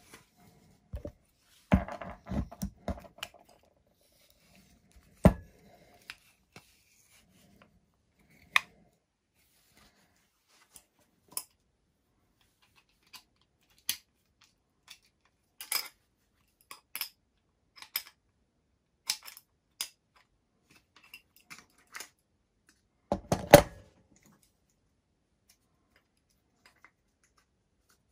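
Small metal hand tools and parts being handled on a workbench: irregular sharp clicks and knocks, with a burst of clatter about two seconds in and the loudest cluster of knocks near the end.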